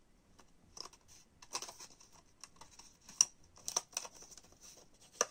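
Handling of a clear plastic bauble half as a paper disc is pressed into it: irregular small clicks and taps of the plastic with light paper rustling, one sharper click about three seconds in.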